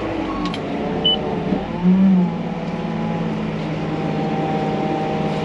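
Telehandler's diesel engine running, heard from inside the cab while the machine drives with a load, with a brief surge in engine note about two seconds in. A short high beep sounds about a second in.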